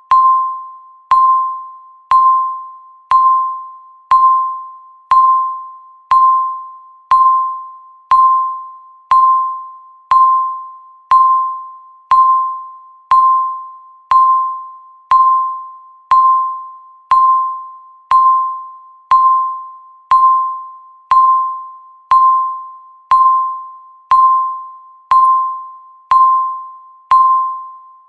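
Electronic countdown-timer beep, a single clear tone sounding once every second and dying away quickly after each strike, ticking off the seconds of a countdown still in progress.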